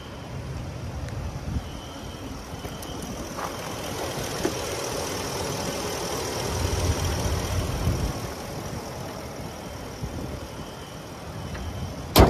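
Ford F-250's 6.2-litre gas V8 idling steadily, a little louder around the middle. Near the end there is one sharp slam as the raised hood is shut.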